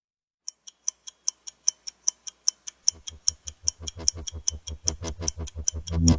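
Stopwatch ticking as a sound effect, sharp and even at about five ticks a second. A deep bass pulse fades in under it about three seconds in and builds.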